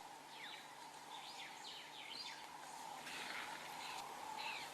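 Faint outdoor ambience of birds calling: many short, quick chirps that fall in pitch, scattered throughout, over a faint steady tone and a quiet hiss.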